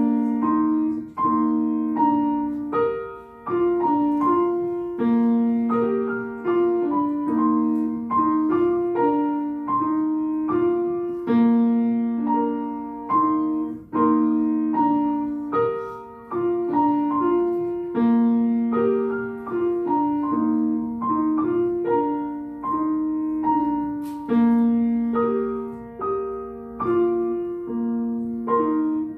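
Solo piano playing a slow, steady melody of single struck notes over a simple accompaniment, each note ringing and fading before the next.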